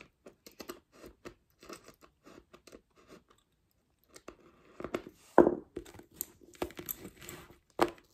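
Bobbin-lace bobbins clicking and knocking against each other as pairs are handled on the lace pillow, with pins being pressed down. The clicks are sparse and soft at first, then busier and louder from about four seconds in, with one sharper knock a little after five seconds.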